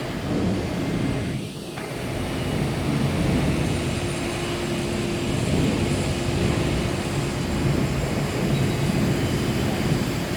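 CNC press brake's hydraulic drive running, a steady mechanical hum; a steady tone joins about four seconds in.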